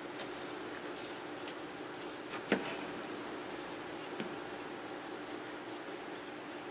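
Scissors cutting through paper over a steady background hiss, with one sharper click about two and a half seconds in.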